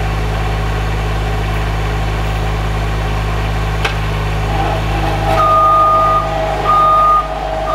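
Skid steer loader engine idling steadily. About four seconds in there is a sharp click, and from about five seconds a whine joins the engine while a high electronic beeper sounds three times.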